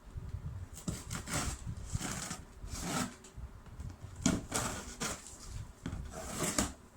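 Cardboard box and packaging of a cookware set being handled and opened: uneven rubbing and scraping bursts, with a sharp knock about four seconds in.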